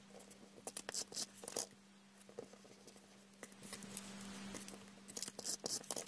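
Faint rustling and small taps of paper and card stock being handled, as a die-cut paper piece is pressed onto a card and the card is laid down on a cutting mat. The sounds come in two short clusters, early and near the end, over a faint steady hum.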